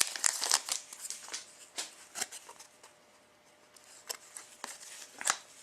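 Hockey trading cards being handled and flipped through by hand: a sparse run of light clicks and rustles of card stock, quietest about halfway through.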